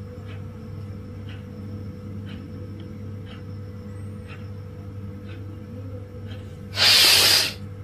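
A steady low hum with a faint tick about once a second, then near the end one short, loud rush of breath lasting under a second: the forceful breath that ends a held-out exhalation in external-retention (bahya) pranayama.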